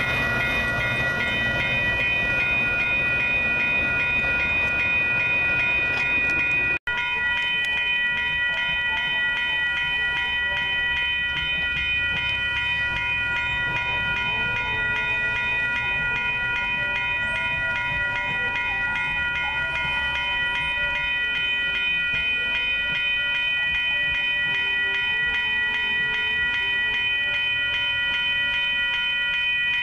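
Railroad grade-crossing warning bell ringing steadily and rapidly. For the first several seconds the low rumble of a departing diesel commuter train runs under it, until an abrupt cut.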